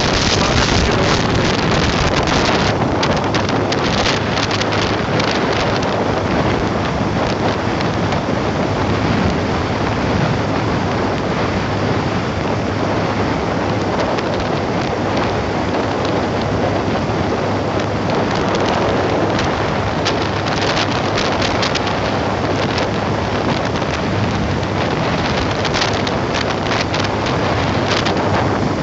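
Wind rushing over the microphone of a motorcycle at highway speed, a steady loud noise with the engine's low hum underneath.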